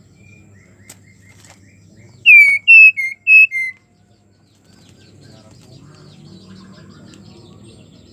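Female white-rumped shama (murai batu) giving a quick run of five loud, clear whistled notes about two seconds in, each note dropping in pitch; this is the call of a female in breeding condition calling to a male.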